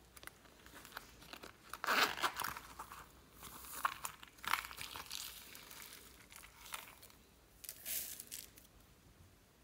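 Crinkly rustling and scraping as a small zippered faux-leather coin purse is handled and unzipped, in uneven bursts, with a last short burst near the end as sequin glitter is shaken out of it.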